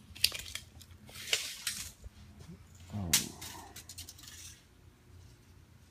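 A few sharp clicks and a short clatter of small objects being handled over a faint steady hum, with a brief falling tone about three seconds in.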